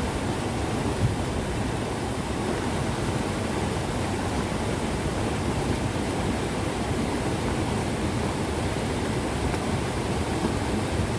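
River water rushing steadily, a continuous full, low-weighted wash of flowing water.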